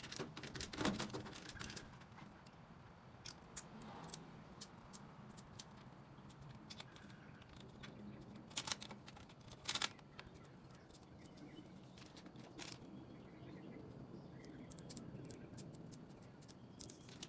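Clear vinyl transfer tape crackling and clicking as it is rubbed down and peeled off vinyl lettering: faint scattered ticks with a few sharper clicks, the loudest about a second in and again near ten seconds in.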